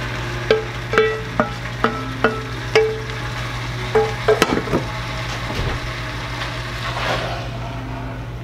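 Wooden spoon knocking and scraping against a metal saucepan as the last of a thick sauce is worked out: about eight sharp clicks, each with a brief ringing, over the first four and a half seconds. Then a louder clatter of pans being moved off the stovetop, over a steady low hum.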